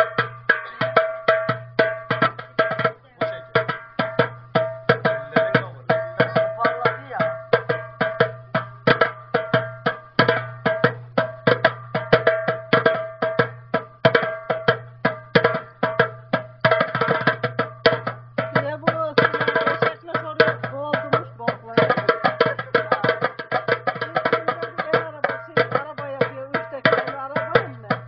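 Hand drumming on a metal goblet-shaped vessel played like a darbuka: fast, even strikes with a steady ringing tone under them.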